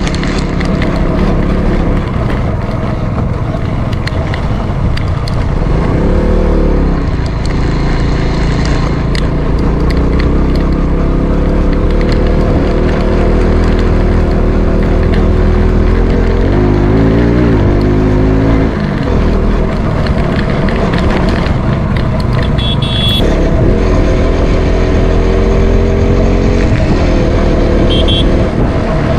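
Motorcycle engine running under way, with its pitch rising and falling briefly twice, about six seconds in and again around seventeen seconds, as the revs change.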